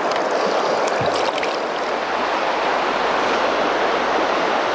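Steady rush of a large, fast-flowing river, heard close to the water surface.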